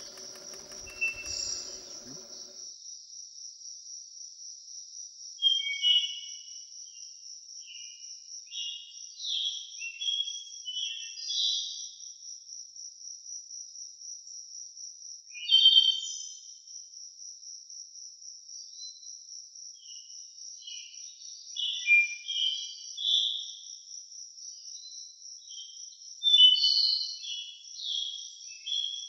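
A cricket-like insect trill that pulses on steadily, high-pitched, with wild birds singing short chirping phrases on and off over it. A faint low hum is heard for the first couple of seconds.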